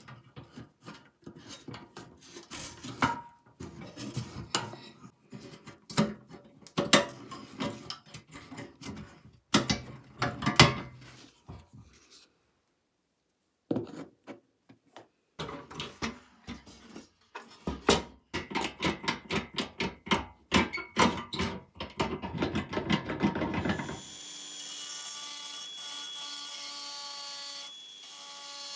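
Sheet-metal toy truck parts being handled and pried apart: scattered metal clicks, taps and scrapes, with a brief pause partway through and a quick run of clicking later on. Near the end a drill starts up and runs steadily, turning a wheel axle.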